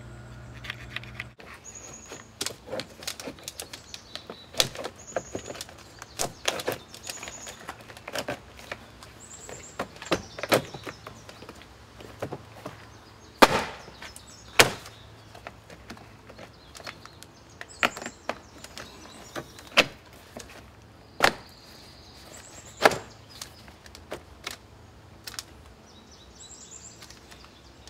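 Irregular clicks and knocks of a vinyl shake siding panel being handled and pressed into place against the wall, with a few sharper knocks, over faint bird chirps.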